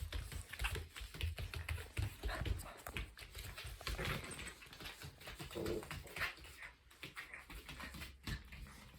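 Mame-shiba puppy spinning in circles: a rapid, irregular run of claw clicks and paw scuffs, with soft thumps.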